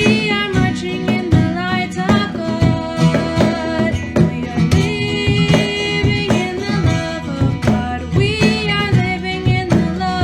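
A song with a singing voice over guitar accompaniment and a steady beat.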